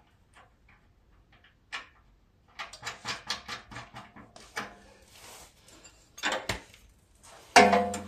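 Metal mower-deck hardware clinking and clanking as brackets are handled and fitted: a quick run of light metallic taps, then a louder clank that rings briefly near the end.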